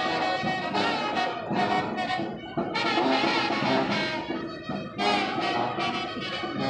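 Brass band playing a jazz tune in the street, the horns in loud phrases with short breaks about two and a half and five seconds in.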